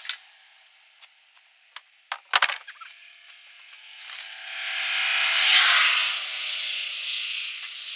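A few sharp wooden knocks and a short clatter about two seconds in, as a wooden pallet is handled on gravel. Then a vehicle passes on the road, swelling to its loudest just past halfway and fading, with a slight drop in pitch as it goes by.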